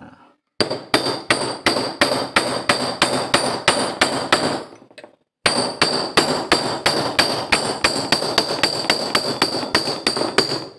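Hammer striking steel in quick, even blows, about four or five a second, with a metallic ring, driving the bearing off the shaft of a Honda power steering pump. There is a short pause a little before halfway, then the hammering resumes.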